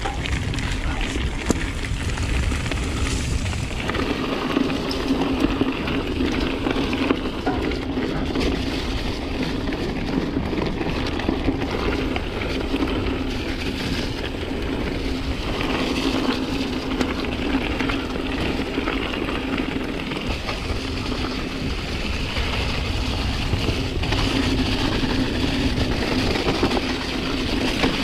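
Mountain bike descending a dirt singletrack at speed: tyres rolling over the trail and the bike rattling continuously, with a steady low hum running through it and wind buffeting the microphone.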